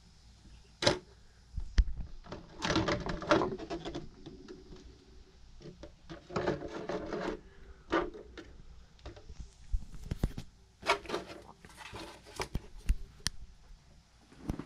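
Clicks, knocks and short clattering stretches from the Kyosho 1965 Buick Riviera 1/10-scale RC car being handled, in irregular bursts with gaps between.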